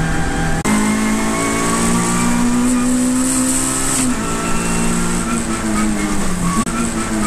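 A saloon race car's engine under hard acceleration, heard from inside the cockpit. Its pitch climbs steadily, broken by quick gear changes about a second in, at about four seconds, and near the end, each marked by a brief dip in the sound.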